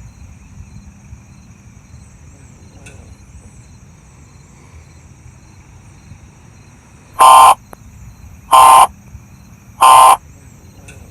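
Three short, very loud bursts of Emergency Alert System digital data tones, each under half a second and about a second apart, the pattern of the end-of-message signal. A faint steady background with thin high chirping runs beneath.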